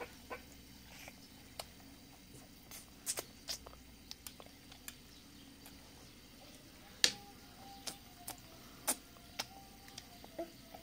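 Scattered small wet clicks and smacks, about a dozen, from a toddler licking and eating a sticky red food off his palm; the sharpest comes about seven seconds in.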